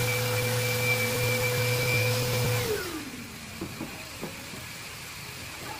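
Random orbital sander with a dust extraction hose running on an epoxy resin tabletop, a steady whine. About two and a half seconds in it is switched off and its pitch falls as it winds down, followed by a few faint knocks.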